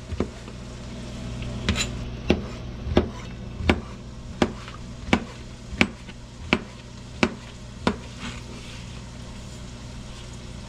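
Chef's knife chopping porcini mushrooms on a plastic cutting board: about ten even knife strikes, roughly one every 0.7 seconds, stopping about eight seconds in.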